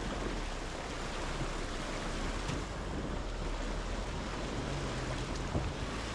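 Steady rushing noise with a low, even hum beneath it.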